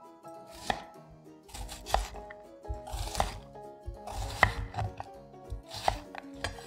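Chef's knife chopping an onion into chunks on a bamboo cutting board: the blade knocks on the wood about once a second, some strokes with a short crunch through the onion. Background music plays under it.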